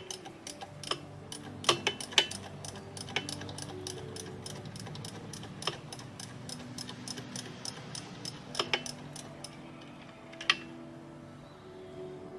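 Hand ratchet clicking in fast runs as fasteners on the compressor are turned, with a few sharper metal clicks, over background music with held notes.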